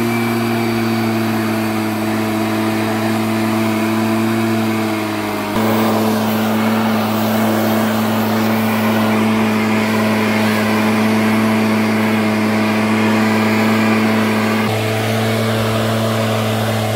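Echo leaf blower running steadily at an even engine speed, with a rush of air. The air rush grows louder about five seconds in and eases again near the end.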